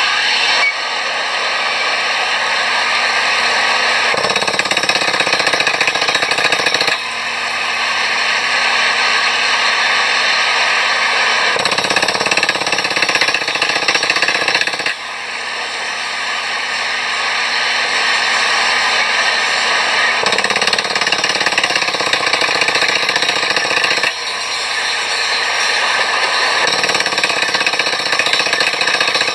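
HFW water well drilling rig air-drilling, with a loud continuous hammering rattle and the hiss of compressed air blowing dust and rock cuttings out of the borehole. The noise drops sharply every seven or eight seconds and builds back up, and a deeper rumble comes and goes in stretches of a few seconds.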